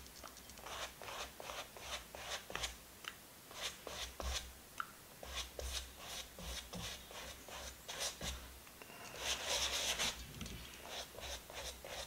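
Flat paintbrush stroking rabbit skin glue size across a stretched cotton canvas in quick back-and-forth cross strokes: a run of short brushing swishes, about three a second, with a denser, continuous stretch of brushing about nine seconds in.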